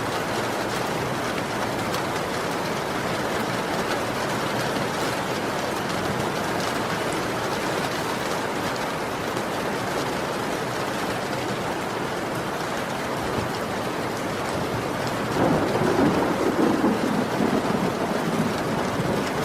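Heavy rain falling steadily. About three-quarters of the way through, a low rumble of thunder rolls in and continues to the end.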